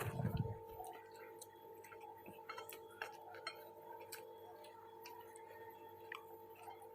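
Quiet eating sounds: scattered small clicks of chewing and mouth noises, over a faint steady hum.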